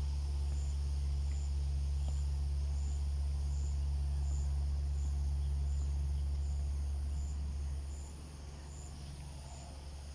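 Insects chirping in an outdoor chorus, with a short high chirp repeating about three times every two seconds over a steady high drone. A steady low rumble sits under them and drops away about eight seconds in.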